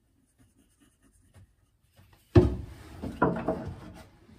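A sharp knock on wood about two and a half seconds in, then rubbing and lighter knocks as a small wooden spacer block and glue bottle are handled against plywood framing.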